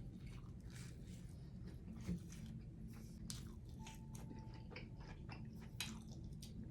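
A person biting and chewing grilled cheese sandwich, with irregular small crunches and wet mouth clicks.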